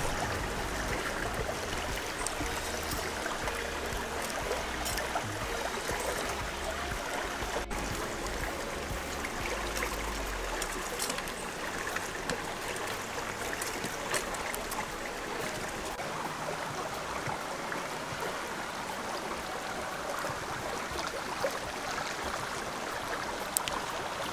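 A stream running steadily, with a few faint clicks and a low rumble for the first ten seconds or so.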